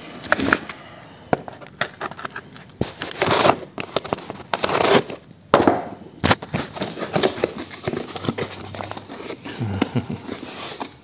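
Packing tape being torn off a small cardboard box and the cardboard crinkling as the box is opened, with several short rasping tears among smaller rustles and clicks.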